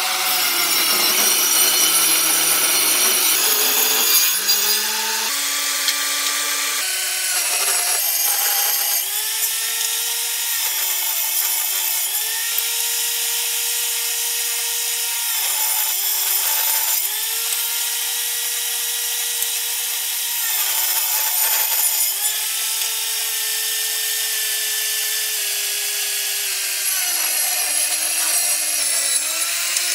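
Table saw running and ripping cherry boards into strips. Its motor hum holds a steady pitch, then sags each time the blade is loaded by a cut, several times over, most clearly about halfway through, just after two-thirds of the way, and near the end.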